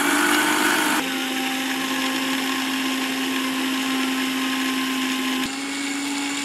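Electric mixer-grinder with a stainless steel jar running at full speed: a steady motor whine, its pitch dipping slightly about a second in and rising a little again near the end.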